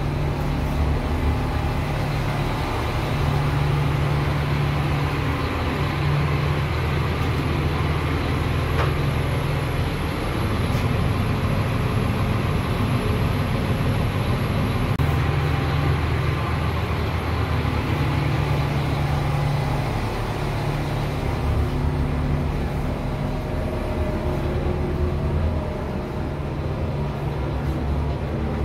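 Diesel engine of an RA2 railcar idling at standstill, heard inside the passenger saloon as a steady low hum that slowly swells and eases.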